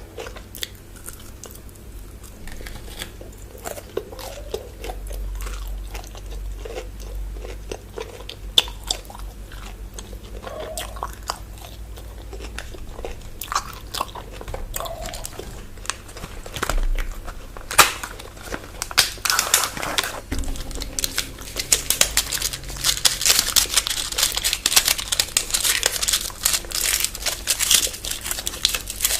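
Close-miked chewing and biting of chocolate bars, with wet mouth clicks and crunches. About two-thirds of the way in it turns to a denser, louder crackling crunch.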